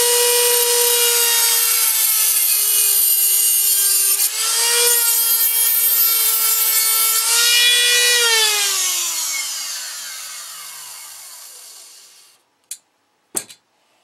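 Dremel rotary tool with a cutoff wheel running at full speed, a steady high whine with a grinding hiss as it cuts a thin wire to length. About eight seconds in it is switched off and the whine falls in pitch as the wheel spins down over some four seconds, then two small clicks.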